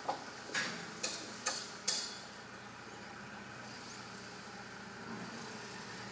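A hand patting a pony's neck, five quick slaps about two a second, as a reward, over a steady background hiss.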